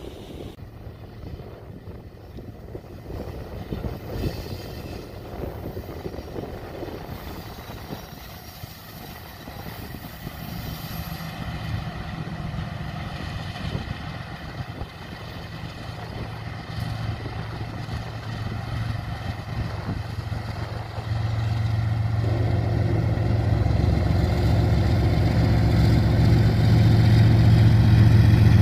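BNSF diesel locomotive approaching and passing close below, its engine drone growing steadily louder and jumping up near the end as the locomotive comes underneath, followed by the hopper cars rolling over the rails.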